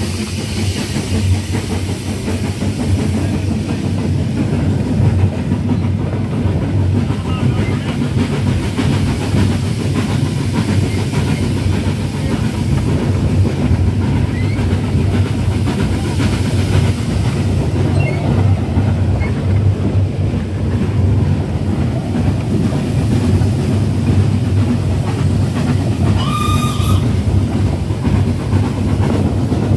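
Steam tank engine and its carriages running along the line, heard from an open carriage: a steady rumble of wheels on the rails, with one short steam whistle blast near the end.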